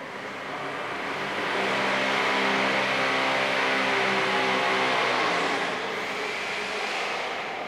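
A large vehicle passing by on the street, its engine hum and tyre noise building up over a couple of seconds, holding, then fading away.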